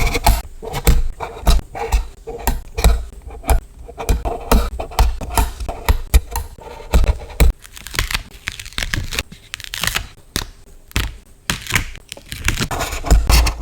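Scenery stickers being peeled from their backing sheets and handled: short ripping and crinkling of paper and plastic film, with irregular taps and clicks.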